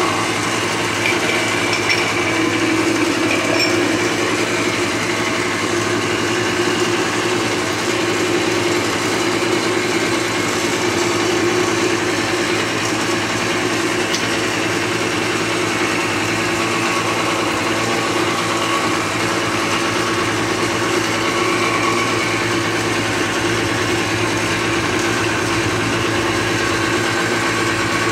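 A steady, unchanging mechanical hum.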